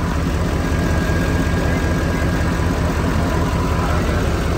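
Steady low mechanical rumble, with a faint thin whine over it that fades out a few seconds in.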